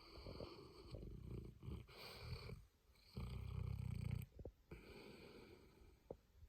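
A sleeping Boerboel, a South African mastiff, snoring: a run of breaths with a fluttering low vibration, the loudest and longest about three seconds in.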